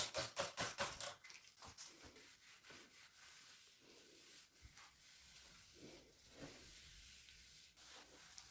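Brisk rhythmic scrubbing, about four to five strokes a second, for the first second and a half, then faint rubbing and soft handling noises.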